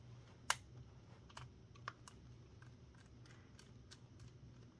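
Faint, scattered small clicks and ticks from a screwdriver, tiny screws and plastic parts being handled while a film camera is taken apart. The sharpest click comes about half a second in, and a smaller one comes near two seconds.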